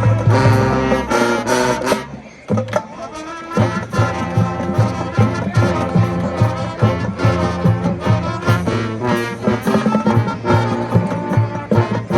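High school marching band playing: brass and drums hold a loud chord that cuts off about a second in, then after a brief dip the band goes into a driving rhythmic passage with a steady beat.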